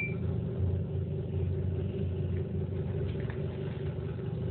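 A steady low hum, like a motor or fan running, unchanging throughout.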